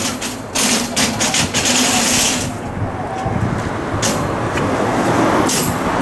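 Hankai Tramway tram car 710 pulling in to the stop and halting: a steady low rumble from the car, with several short hisses about a second in and again near the end.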